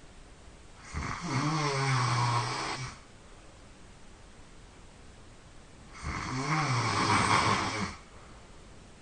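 A person snoring loudly in sleep: two long snores about five seconds apart, each about two seconds of low buzz under a rasping hiss.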